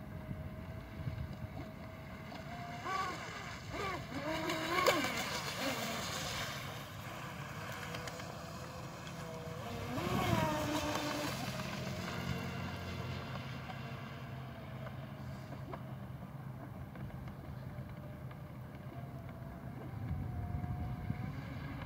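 Pro Boat Shockwave RC speedboat's brushless electric motor whining at speed on a 6S battery, with the hiss of the hull and spray on the water. The whine's pitch bends up and down as the boat passes close, about three to five seconds in and again about ten seconds in.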